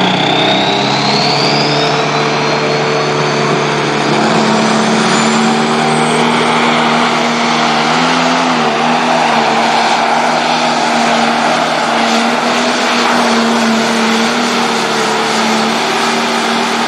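Turbocharged diesel engine of a John Deere pulling tractor running flat out under load as it pulls the weight sled. It is loud and steady, with a high whine rising in pitch over the first couple of seconds.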